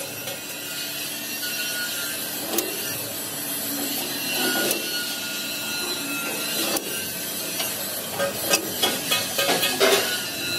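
Workshop tool noise from metalworking: a steady rasping, scraping hiss with scattered knocks, coming more often near the end.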